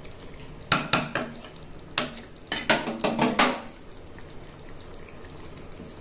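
Spatula knocking and scraping against a non-stick pan while stirring a fish curry: a run of sharp knocks and clicks in the first three and a half seconds, then only the curry's low simmer.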